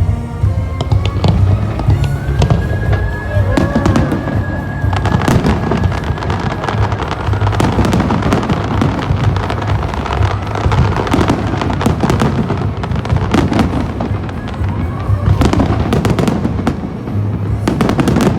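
Fireworks bursting and crackling over and over, with music playing underneath.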